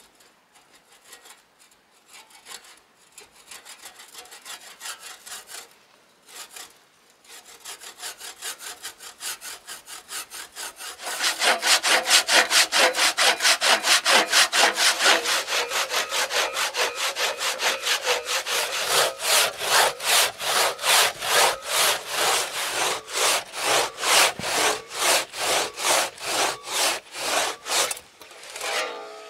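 Large hand saw cutting through wood in a steady back-and-forth rhythm. The strokes are light at first, then turn loud and fast about a third of the way in, and stop shortly before the end.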